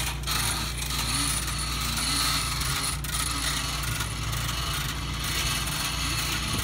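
Spring-loaded retractable hose reel paying out a water hose as it is pulled off, its ratchet making a continuous metallic clicking rattle.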